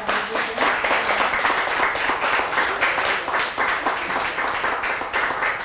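Small audience applauding, many hands clapping together in a dense, steady patter.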